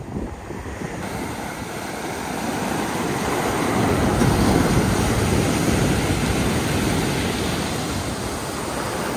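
Sea waves breaking and washing up a pebble beach, a steady rush of surf that swells to its loudest about four seconds in and then eases a little.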